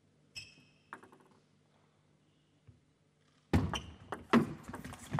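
Table tennis ball clicking twice on the table, then a rally from about three and a half seconds in: quick sharp knocks of the celluloid-type ball off bats and table, a few each second, over louder hall noise.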